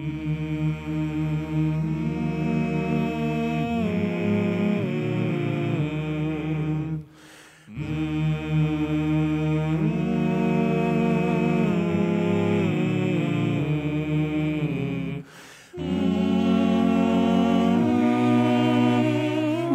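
Seven-man male vocal ensemble singing a hymn a cappella in close harmony, in three long phrases separated by short pauses about 7 and 15 seconds in.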